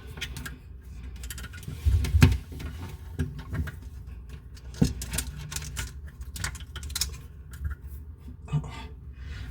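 Irregular clicks, taps and rustles of hands handling plumbing parts while plumber's tape is wrapped around a pipe thread, with a couple of louder knocks about two seconds in and near five seconds.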